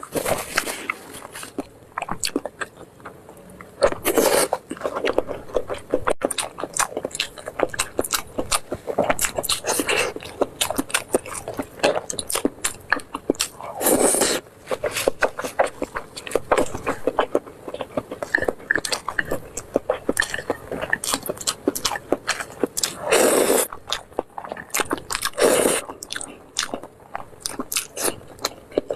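Close-miked eating of black bean sauce noodles and soft braised eggs: steady wet chewing and mouth clicks, broken by a few louder slurps.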